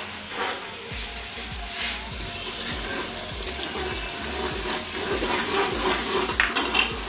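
Sliced onions sizzling steadily in hot oil in a pot, with whole spices just added, while a metal spoon stirs and knocks against the pot a few times.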